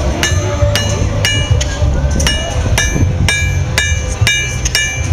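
Blacksmith's hammer striking red-hot iron on an anvil, held in tongs, about two blows a second, each with a bright metallic ring.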